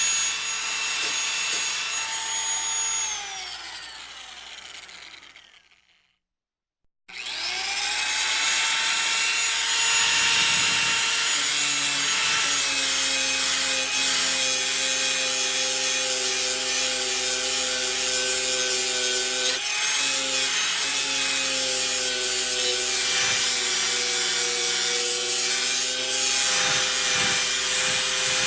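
An electric power tool runs, is switched off and winds down with a falling whine. After a second or so of silence, another power tool starts with a rising whine and runs steadily with a dense, harsh noise for the rest of the time.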